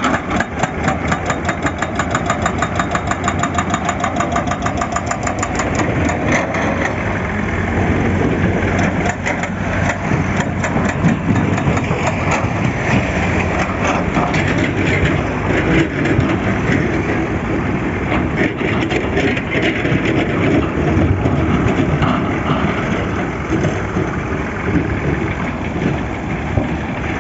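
Diesel engine of heavy earthmoving machinery such as an excavator running, with a fast, even clatter over the first several seconds that gives way to a steady engine noise.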